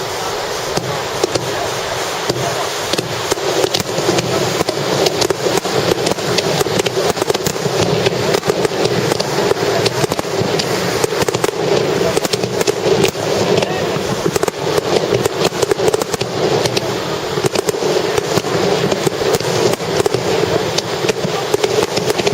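Fireworks starmine, a rapid-fire barrage of shells: a dense, continuous stream of pops and crackles that thickens and gets louder a few seconds in.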